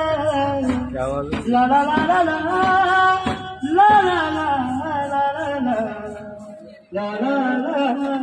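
A man singing a slow melody into a handheld microphone, with long held, wavering notes. The voice stops briefly about seven seconds in, then carries on.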